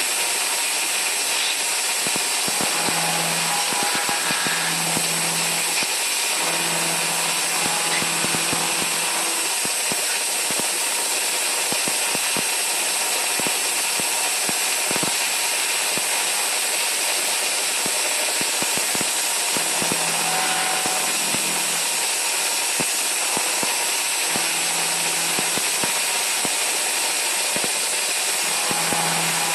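Star SR20 sliding-head CNC lathe running, turning a brass banjo fitting dry with the coolant off and speeds slowed. A steady high hiss, a low hum that comes and goes every few seconds, and scattered light clicks.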